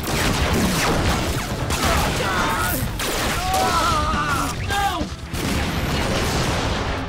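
Dense battle sound effects: explosions, blasts and metal crashing as giant robots are hit, with several short wavering cries or whines in the middle.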